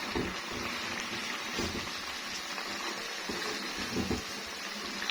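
Yogurt-and-spice masala with chicken frying in a pot: a steady sizzle, with a few soft knocks.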